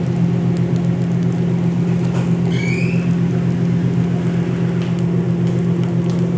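Steady low electric hum of a kitchen appliance motor, with a short rising squeak about two and a half seconds in.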